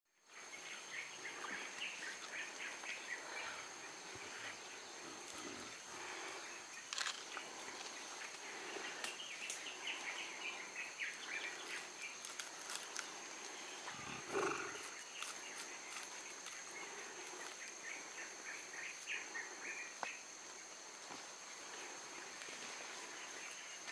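Forest ambience: a steady high whine under many quick chirps, with scattered rustles and clicks and one louder low thump about halfway through.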